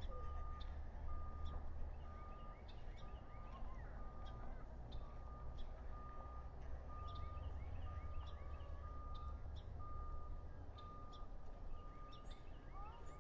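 A steady high electronic beep repeating about twice a second, like a vehicle's reversing alarm, over a constant low rumble, with scattered short high chirps and ticks.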